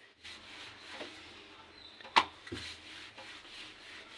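Wooden rolling pin rolling out naan dough on a board: a soft, continuous rubbing, with one sharp knock about two seconds in.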